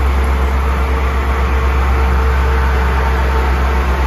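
Diesel railcar engines of a Thai express train running with a steady, loud low drone.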